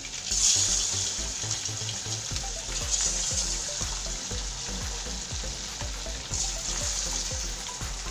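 Marinated chicken lollipops deep-frying in hot oil: steady sizzling and bubbling that swells louder about half a second in, as a piece is dropped into the oil, and swells again near three seconds and around six seconds.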